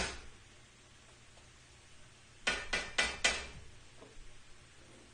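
A cooking utensil knocking against a frying pan on the stove: a single clack at the start, then four quick knocks with a short metallic ring about two and a half seconds in.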